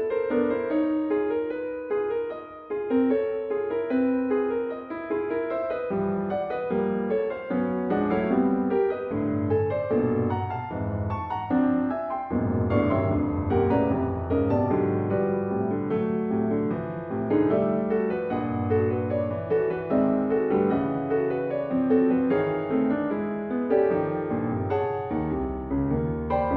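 Solo piano playing a continuous passage of many separate notes; deeper bass notes join about six seconds in and the low register fills out from about twelve seconds on.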